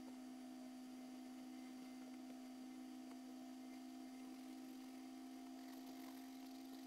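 Steady faint electrical hum: one low tone with a fainter, higher tone above it, unchanging throughout.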